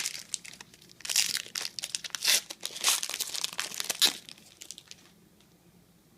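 A trading card pack's wrapper crinkling and tearing as it is opened, in a dense run of crackles that stops about four seconds in.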